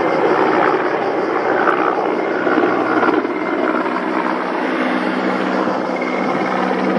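Mil Mi-8 helicopter running: a loud, steady rush of twin-turbine and rotor noise with a constant low hum under it.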